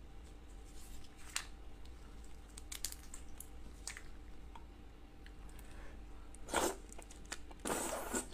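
Wet mouth and hand sounds of eating raw red shrimp: scattered small clicks and squelches of peeling and chewing. Near the end come two louder bursts as the soft shrimp meat is sucked into the mouth.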